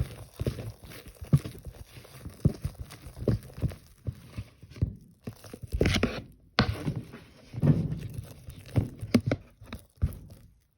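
Spatula stirring sticky melted marshmallow in a microwavable bowl: irregular squelching, tearing pulls and knocks of the spatula against the bowl.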